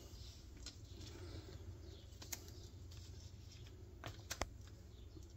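Faint handling noise from vinyl decals being handled on a cutting mat: a few light clicks and rustles, three of them close together about four seconds in, over a low steady hum.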